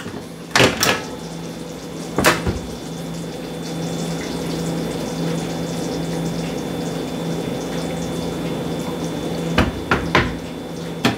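A large metal skillet of gravy handled on a portable burner: a few short knocks of the pan and its handles against the stove, over a steady background hum.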